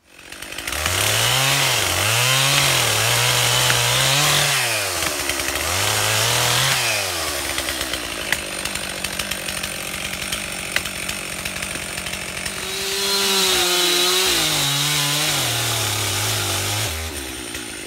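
Two-stroke chainsaw that comes up within the first second and is revved up and down several times. It then runs lower and rougher while cutting into a tree trunk, is revved high again, and drops back near the end.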